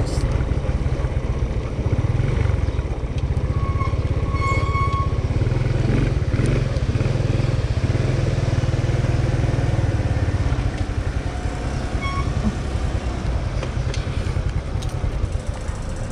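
Small scooter's engine running while it is ridden, under a heavy, flickering low rumble of wind buffeting the microphone. The rumble eases a little about two-thirds in as the scooter slows and pulls in.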